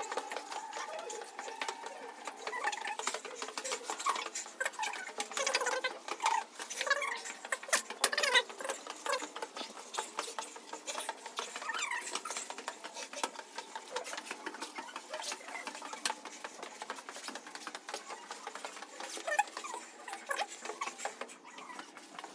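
Footsteps and scuffing on the steps of a narrow brick spiral staircase, a steady run of quick taps and shuffles as someone climbs.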